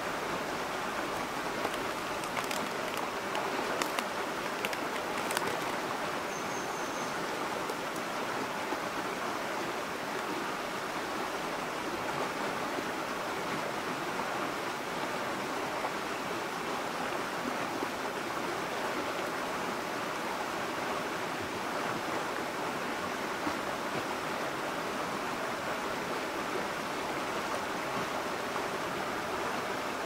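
Clear mountain stream flowing over a pebble bed, a steady rush of water. A few faint clicks come in the first few seconds, and a brief high tone sounds about six seconds in.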